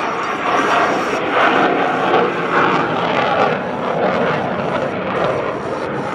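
A USAF Thunderbirds F-16 Fighting Falcon's jet engine at full power as the jet climbs away after takeoff. It makes a loud, rough, continuous jet roar that swells and eases.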